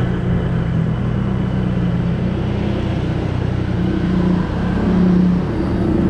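Motor scooter engine running steadily under way, heard from the rider's seat, with road noise; the engine note rises and gets a little louder about four to five seconds in.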